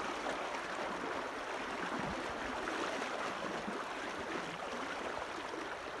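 Steady rushing of a rain-swollen creek, running full and knee-deep around someone wading across it.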